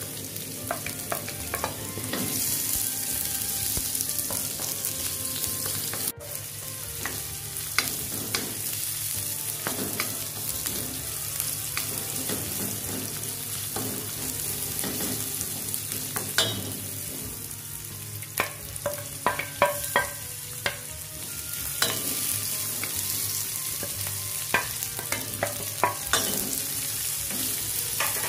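Sliced shallots and garlic sizzling in hot oil in a wok while being stir-fried, with a steady hiss and a wooden spatula scraping and knocking against the pan, the knocks coming thickest about two-thirds of the way through.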